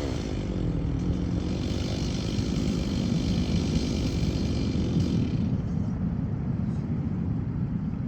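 Chainsaw idling after a cut: a steady low rumble, with a fainter hiss that dies away about five seconds in.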